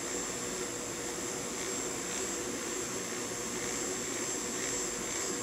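Small fischertechnik electric motors spinning the monorail carriage's propellers: a steady whir with a high, thin whine.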